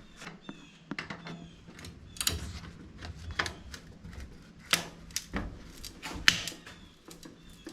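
Irregular clicks and knocks of sheet-metal stove pipe pieces being handled and fitted, the sharpest knock about six seconds in.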